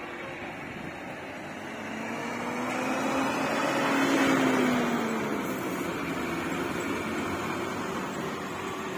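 Tata goods truck's diesel engine driving past close by, growing louder to a peak about four seconds in and then fading. Its engine note rises and then falls as it goes by.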